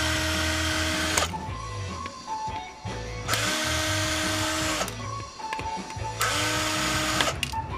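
Cordless drill-driver backing screws out of a plastic camera housing in three short runs of about a second and a half each. Each run starts with a quick rise in motor pitch, then holds steady.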